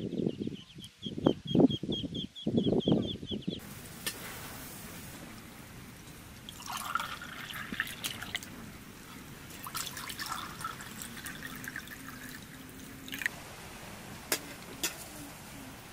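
Domestic ducks calling for the first few seconds, over a fast high chirping. Then water is poured from a jug into drinking glasses in two pours, and a few sharp glass ticks sound near the end.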